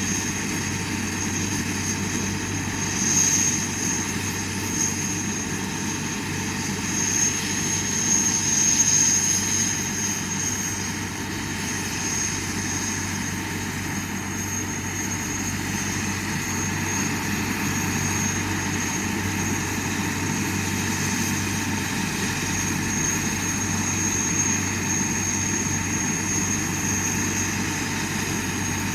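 Helicopter engine running steadily on the ground with a high, constant whine over a low hum, swelling briefly a few times in the first ten seconds.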